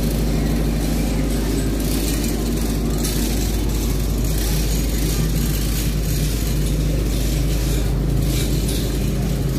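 Steady road traffic: vehicle engines running with a low hum and rumble, under a constant hiss.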